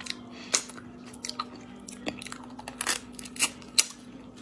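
Close-miked eating of spicy snails: chewing on the snail meat, with sharp clicks and crackles at irregular moments, the loudest a little past halfway through and near the end.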